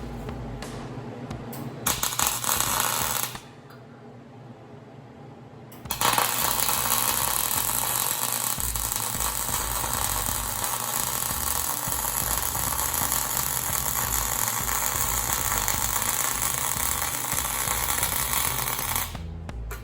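Electric arc welding on steel, a steady dense crackle: one short bead of about a second, a pause, then a long continuous bead of around thirteen seconds that stops just before the end.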